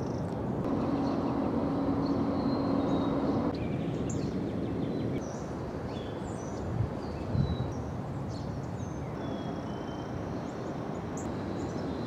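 Outdoor ambience: a steady low rumble with small birds chirping high and briefly now and then. A low hum runs through the first few seconds, and two soft thumps come a little past halfway.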